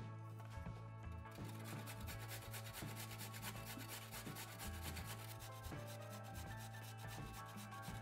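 A kitchen knife chopping onion on a wooden cutting board for about the first second, then a carrot rubbed up and down a stainless steel box grater: rapid, even rasping strokes.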